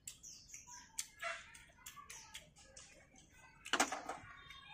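Eating at a table: scattered light clicks and taps of chopsticks against china bowls and a tray, with chewing, and a louder clatter about four seconds in.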